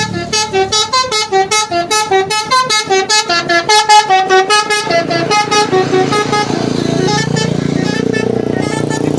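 Bus 'telolet' horn, a set of tuned multi-tone horns, playing a fast melody of short notes at about four a second. After about six seconds the tune stops and gives way to steady vehicle noise.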